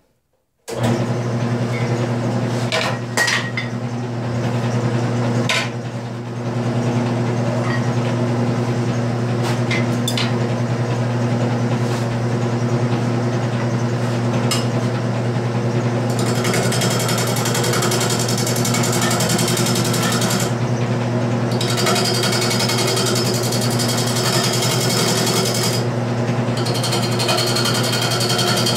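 Wood lathe motor starting up about a second in and running with a steady hum, with a few sharp taps in the first half. From about halfway through, a turning gouge cuts into the spinning wet mulberry bowl blank while it is being roughed out, a rough scraping hiss that breaks off briefly twice.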